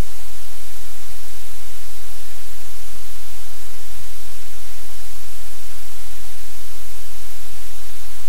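Loud, steady static hiss with a low hum underneath, unchanging throughout.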